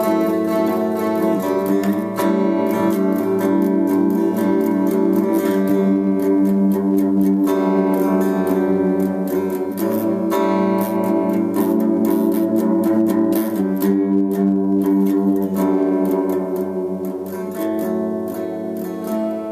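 Guitar in an alternate tuning playing an instrumental piece: plucked and strummed chords with the strings ringing together, steady throughout.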